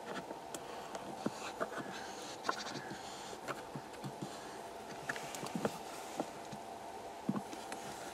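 Common buzzard tearing at a poultry carcass in snow: irregular soft clicks, ticks and rustles from beak and feet working the meat, over a steady faint hum.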